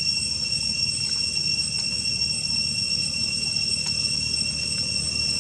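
Steady high-pitched insect drone, two unbroken tones, over a low rumble, with a few faint clicks.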